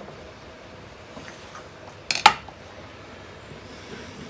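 A single sharp metallic clink about two seconds in, metal parts knocking together with a brief ring, over a faint steady hiss.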